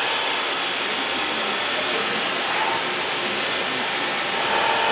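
Fadal 2016L vertical machining center running, a steady whirring, whooshing machine noise of its motors and fans.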